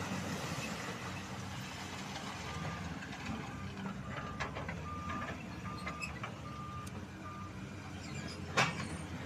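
Heavy machinery's diesel engines running steadily, with a reversing alarm beeping a single high tone about once every 0.7 s through the middle. Near the end there is one sharp knock, the loudest sound.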